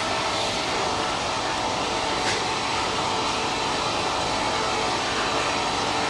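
BG 35-55 track-chain canter machine with its circular saws running and a log feeding through it: a steady, loud machine whirr with no letup. One brief click about two seconds in.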